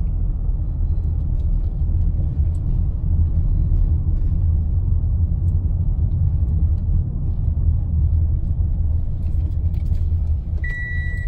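Inside a car's cabin while driving slowly: a steady low rumble of engine and tyres. A high electronic beep starts near the end.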